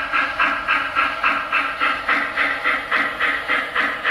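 Lionel Legacy 2-truck Shay model locomotive's sound system playing a steady, rhythmic steam-exhaust chuff, about three chuffs a second, as the engine runs.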